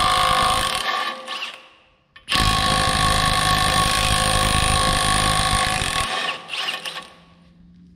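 Milwaukee M18 Fuel high-torque cordless impact wrench hammering on the bolt of a stump grinder cutter-wheel tooth, loosening it to take the tooth off. It runs in two bursts: a short one of about a second and a half, then after a brief pause a longer one of about four seconds.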